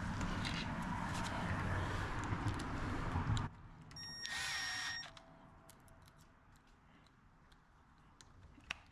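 Cordless drill or screw gun running steadily while driving in the screws of a new door-latch mechanism, stopping abruptly about three and a half seconds in. A brief steady tone follows, then a few faint clicks.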